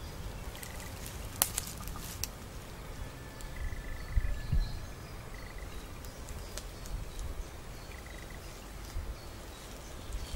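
Woodland ambience: short bird trills that recur four or five times over a steady low rumble on the microphone, with a few sharp clicks, two of them loud, in the first few seconds.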